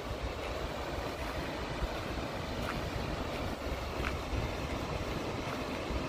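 Steady roar of Skógafoss, a large waterfall's water pounding into its plunge pool, with a low uneven rumble of wind on the microphone underneath.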